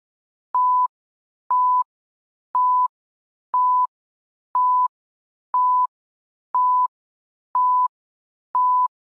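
Electronic beeps: nine short, identical beeps of one steady high pitch, evenly spaced once a second, with silence between them, like a countdown timer.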